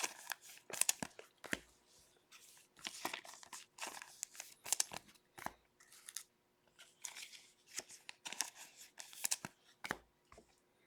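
Wrapper of an Upper Deck Stature hockey card pack being torn open and crinkled, with cards being handled: an irregular run of sharp crackles and short rips.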